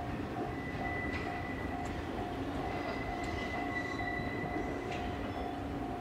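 The Rail Kitchen Chikugo electric train rolling slowly through the rail yard, a steady low rumble with a thin high wheel squeal from about half a second in that fades out after about four seconds. A tone repeats about twice a second throughout.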